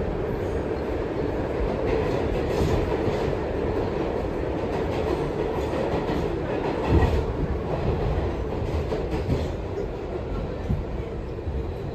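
New York City subway car running through a tunnel: a steady loud rumble of wheels on the rails and car body, with a louder jolt about seven seconds in.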